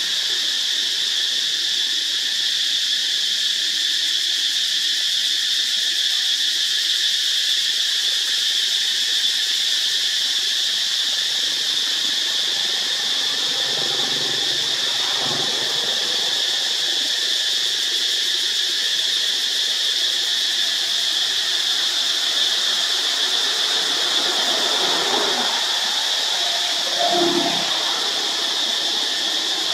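Steady high-pitched drone of forest insects, unbroken throughout. A few short monkey squeals come through faintly around the middle, with a louder one near the end.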